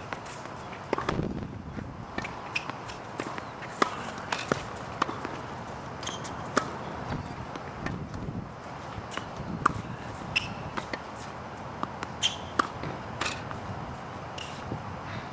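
Tennis balls bouncing on a hard court and being hit with a racket, with footsteps and shoe scuffs between. Sharp pops come irregularly, the loudest every few seconds.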